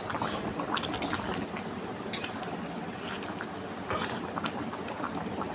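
Potato and cauliflower curry boiling in a pan on the stove: a steady bubbling hiss with many small pops.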